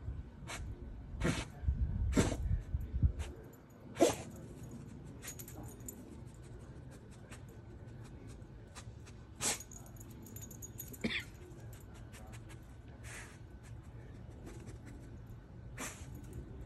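A dog sniffing hard with its nose pushed into dry dirt and leaf litter: short, sharp snuffs at irregular intervals, several close together in the first few seconds and a few spaced out after that.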